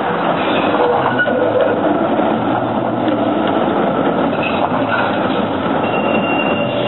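Articulated street tram passing close by, a steady rumble of steel wheels on street rails. A thin high squeal sets in near the end.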